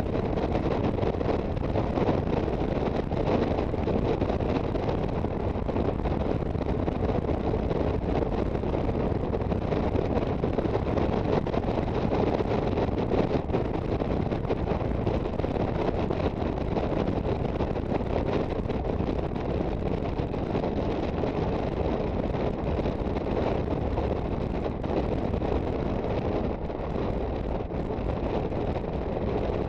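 Wind buffeting the microphone of a moving Aprilia Sportcity Cube 250 scooter, with its engine and road noise running underneath. The noise is steady.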